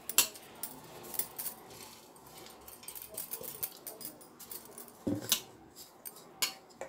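Stainless-steel mixer-grinder jar clinking and tapping against a steel plate as ground sugar is tipped and scraped out of it, in a few scattered light metallic clicks.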